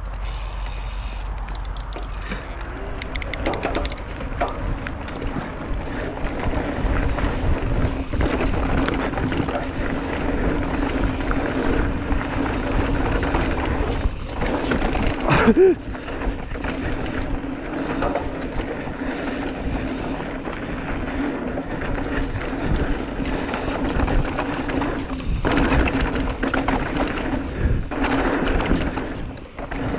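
Mountain bike riding fast down a dirt trail, heard from a camera mounted on the bike or rider: tyres rolling over dirt, steady wind rush and a steady hum, with frequent knocks and rattles over bumps. A louder clatter comes about halfway through.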